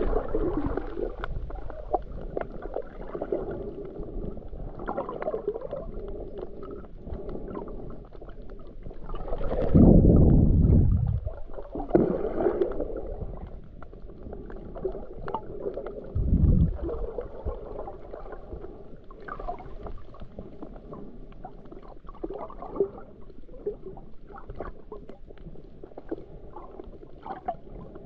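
Muffled underwater water noise picked up by a GoPro held by a snorkeler: a steady wash with faint scattered crackling, and a loud low surge of water about ten seconds in and a shorter one about six seconds later.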